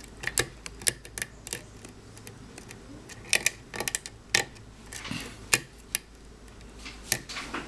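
Irregular small metallic clicks and ticks of a hand-made hook pick lifting the spring-loaded pins of a Marks 6-pin KIK lock cylinder under tension. The clicks come singly and in short quick clusters, as the pick works a lock full of serrated and spool security pins that keep oversetting.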